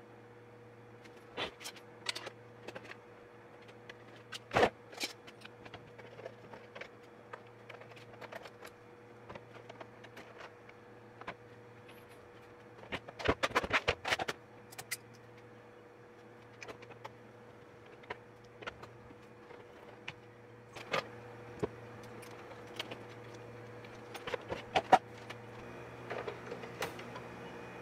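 Handling noise from a Singer Simple sewing machine: scattered clicks and knocks of its plastic housing and tools on the bench, with a clatter of knocks about halfway through as the machine is tipped onto its back. A steady low hum runs underneath.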